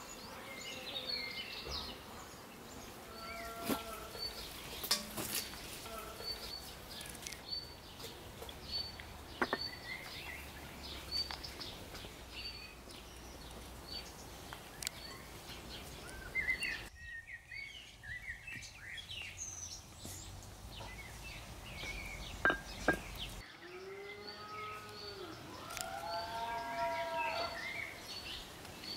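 Birds singing and chirping, with one short high chirp repeating about once a second and other birds' curving calls around it. A few brief knocks sound now and then.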